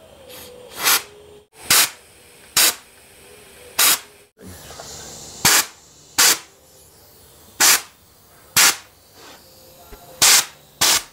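Metal radiator tank struck about ten times, sharp knocks roughly a second apart, while its soldered seam is heated to melt the solder and knock it loose so the tank can come off. A faint steady hiss runs underneath.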